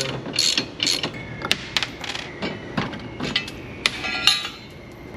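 Irregular metal clicks and clinks of hand tools on the mini bike's front axle nut and bolt, with a couple of ringing metallic knocks about four seconds in.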